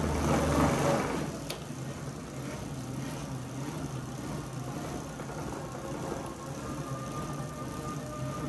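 Bicycle spinning on Tacx rollers: a steady whirring drone from the tyres on the roller drums. A louder swell in the first second dies away.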